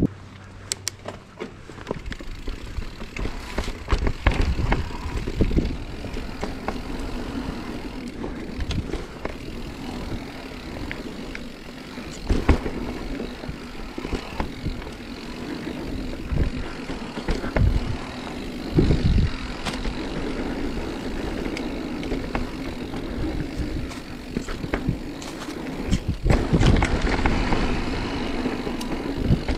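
Marin Mount Vision 8 mountain bike riding down a dirt singletrack: the tyres roll on the dirt with a steady rumble, and the bike rattles and knocks sharply over bumps and roots. It gets louder near the end.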